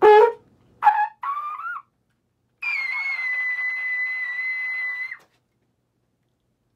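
Valve trombone played with a Bach 1E trumpet mouthpiece: a quick upward rip and two short climbing notes, then a very high note held for about two and a half seconds, settling slightly lower before it cuts off. The held note is the player's triple high B-flat.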